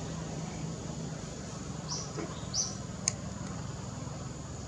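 Outdoor forest background with a steady low hum, broken by two short, high chirps about two seconds in and a single sharp click a second later.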